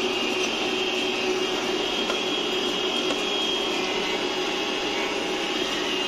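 iRobot Roomba i6 robot vacuum running on a tiled floor: a steady whir of its suction fan and brushes, with a high steady whine on top.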